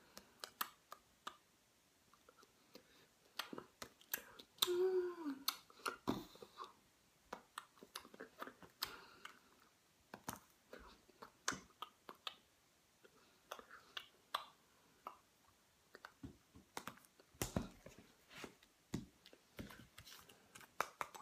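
Irregular sharp clicks and light taps, about one or two a second, with a short wordless voice sound that rises and falls in pitch about five seconds in.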